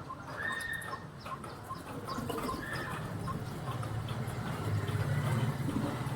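Parakeets and pigeons at their food: a run of small quick ticks, two short whistled calls in the first few seconds, and a low throaty sound that swells in the second half.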